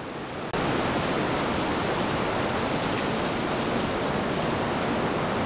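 Steady rushing noise of water, starting abruptly about half a second in and holding even.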